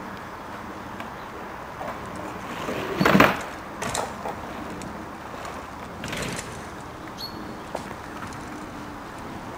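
Mountain bike tyres running over the slats of a raised wooden boardwalk trail, loudest about three seconds in, with shorter bursts about four and six seconds in, over a steady outdoor hiss.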